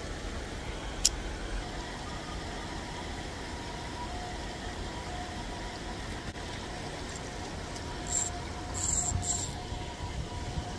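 Steady low rumble of road traffic, with a sharp click about a second in and a few short hissing bursts near the end.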